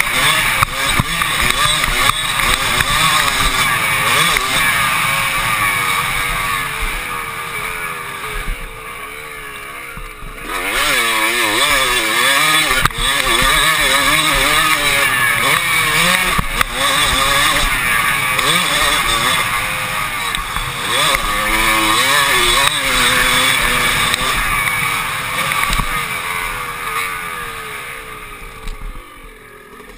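Motocross dirt bike engine being ridden hard, its pitch rising and falling as the rider works the throttle. The engine eases off briefly about ten seconds in and again near the end.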